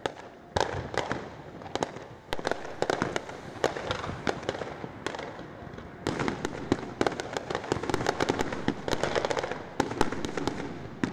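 Fireworks display: a rapid run of sharp bangs and crackling reports from shells bursting overhead, growing denser about halfway through.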